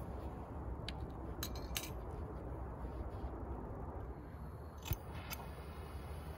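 A few short metallic clicks and clinks from a small propane cylinder and a wrench being handled, the loudest about five seconds in, over a steady low rumble.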